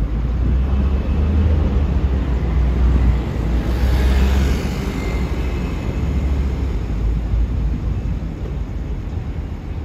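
Wind buffeting the microphone with a heavy low rumble over outdoor traffic noise. A passing vehicle's hiss swells and fades about four seconds in.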